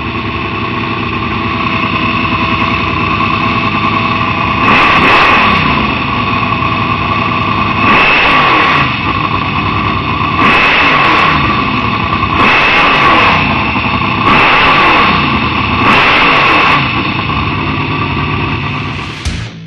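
Off-road competition buggy's engine, heard from on board, running hard with repeated surges of revving about every two seconds as the throttle is worked. It cuts off suddenly near the end.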